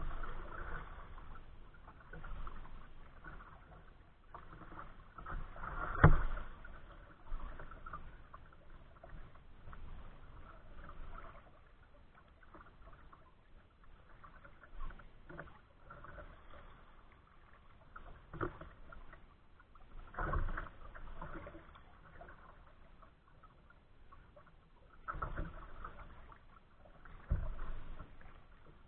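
Choppy water slapping and splashing against a kayak's hull, in irregular surges with a few sharper splashes, the loudest about six seconds in.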